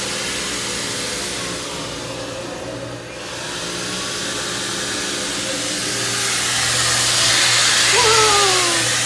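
Air blowing from the yellow nozzles of a Build-A-Bear grooming station: a steady rush of air over a blower's low hum, dipping briefly about three seconds in and growing louder toward the end.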